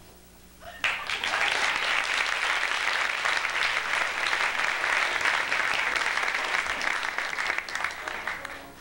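Audience applauding at the end of a sung number in a live musical, breaking out about a second in and dying away near the end.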